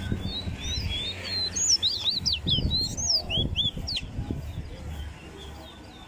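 Caged songbird singing a fast run of high, sweeping whistled notes that slur up and down, densest in the middle and stopping about four seconds in.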